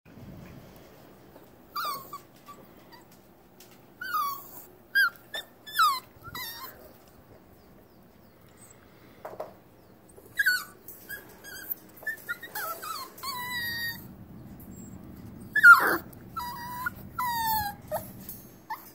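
Six-week-old Brittany puppy whining and whimpering in a string of short, high-pitched cries that mostly fall in pitch, with a few longer, drawn-out whines near the end.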